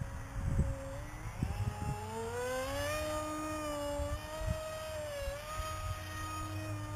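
Motor and propeller of an RCPowers F-35 v2 radio-controlled model plane flying overhead: a whine that climbs in pitch over a second or so, holds steady, and dips briefly near the end. Wind buffets the microphone at the start.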